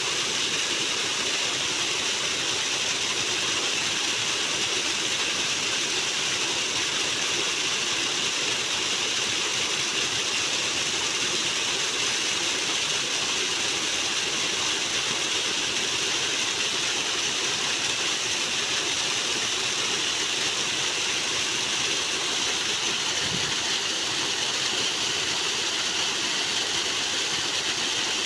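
Loud rushing water flowing steadily and continuously, a constant hiss-like roar without pauses or rhythm.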